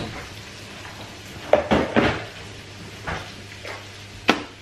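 About five separate sharp knocks and clatters of a just-emptied tin can being handled and set down beside a countertop blender jug.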